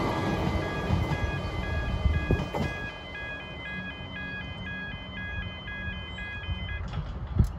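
Pedestrian crossing warning alarm sounding a repeating pattern of alternating electronic tones, stopping about seven seconds in, over the fading rumble of a Comeng electric train pulling away down the track. A sharp knock near the end.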